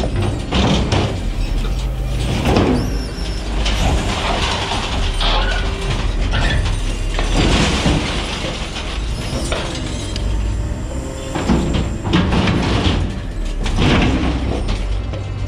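Knuckle-boom grapple crane truck working. The engine runs steadily under load while the hydraulic grapple handles a rusty steel bin, and metal scrapes and clanks several times as the bin is swung and tilted.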